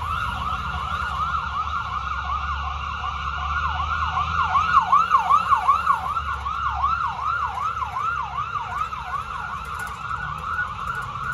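Ambulance siren on yelp, a fast rising-and-falling wail repeating a few times a second, loudest about halfway through as the ambulance pulls away, with a low vehicle engine rumble underneath.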